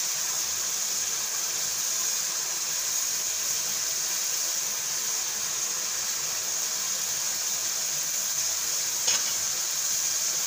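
Chicken and tomatoes in water simmering in an aluminium pot on a gas flame, a steady sizzling hiss. One light tap about nine seconds in.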